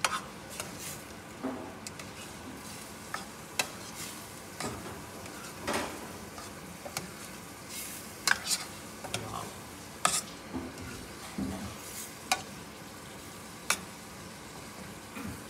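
Metal spoon stirring and scraping chicken curry in a stainless steel saucepan, with sharp irregular clinks of the spoon against the pan over a steady sizzle from the pot on the gas flame.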